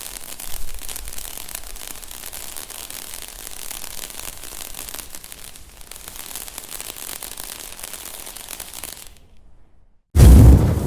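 Fire crackling and burning, a dense run of small pops and hiss that fades out about nine seconds in. After a second of silence, a sudden very loud burst with a deep rumble cuts in near the end and is the loudest thing.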